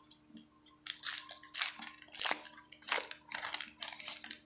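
Foil wrapper of a baseball card pack being torn open and crinkled in the hands, a run of irregular sharp crackles.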